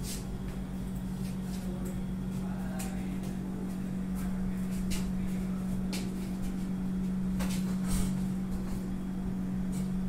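Voltas Vertis window air conditioner running with a steady low hum, with scattered light clicks and taps over it.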